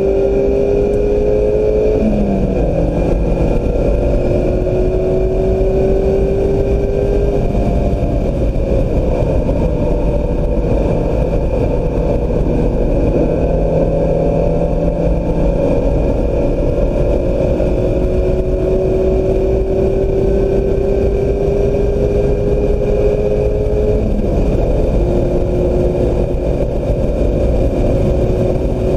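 2016 Mazda MX-5 Miata's four-cylinder engine pulling hard under sustained acceleration, its pitch climbing slowly. It drops sharply with an upshift about two seconds in and again near the end. Heavy wind and tyre noise runs underneath.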